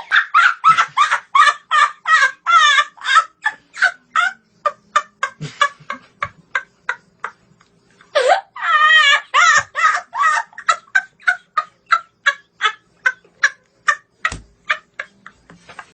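A domestic fowl calling: a long run of short, pitched clucks, about three or four a second, broken about eight seconds in by a longer, wavering call before the clucking picks up again.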